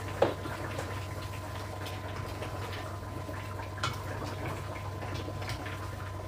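Chicken and potato curry simmering in a frying pan, stirred with a wooden spatula that knocks sharply against the pan just after the start and more lightly about four seconds in. It is being left to simmer a long time so the chicken turns tender. A steady low hum runs underneath.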